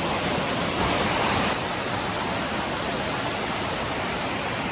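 Waterfall rushing, a steady, dense roar of falling water. It swells a little for a moment about a second in.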